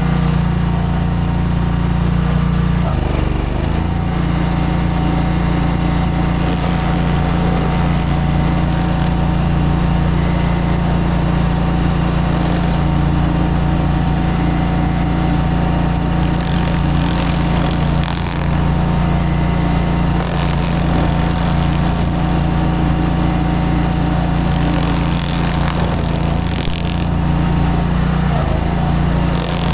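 Engine of a small track-driven Barreto stump grinder running steadily, its pitch dipping briefly about three seconds in and shifting again near the end.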